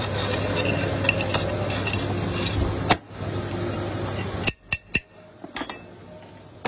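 Metal clinks and knocks from a single-phase electric pump motor being taken apart, as its metal end cover is handled and set down on the bench, with a few sharp clicks about four and a half seconds in. A steady background hum and noise drops away about three seconds in.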